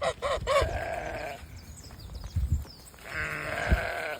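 Llama calling: a few short, arching cries in the first second run into a drawn-out call, then another long call about three seconds in. Two low thuds come between and during the calls.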